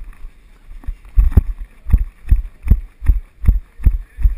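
A runner's footfalls on asphalt jolting a body-worn action camera: heavy, even thumps a little under three a second, settling into a steady running rhythm about a second in after a brief break.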